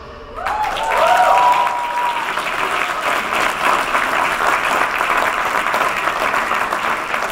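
Audience applauding as the performance ends, with a few cheers and whoops in the first couple of seconds.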